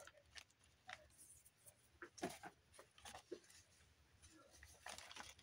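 Faint rustling and light taps of paper being handled: hands pressing, smoothing and lifting the pages of a handmade paper junk journal, with a few soft crinkles about two seconds in and again near the end.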